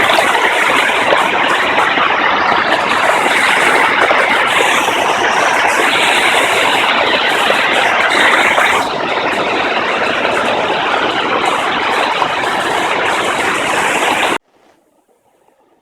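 Waterfall's falling water making a loud, steady rushing roar, which drops a little about nine seconds in and cuts off suddenly near the end.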